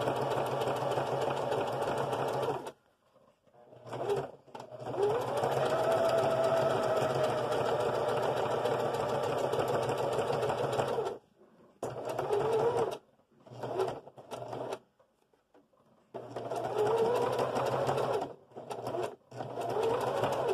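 Electric sewing machine running a zigzag satin stitch in a series of stop-and-start runs, the longest about six seconds; its motor whine rises as each run speeds up.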